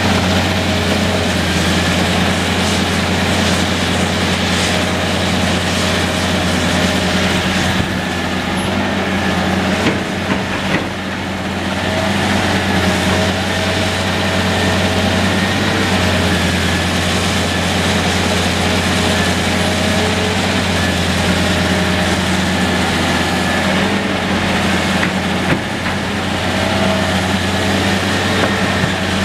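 Diesel engine of a 45-tonne CAT long-reach excavator running steadily as it digs with its bucket, with a higher whine that comes and goes over the engine drone.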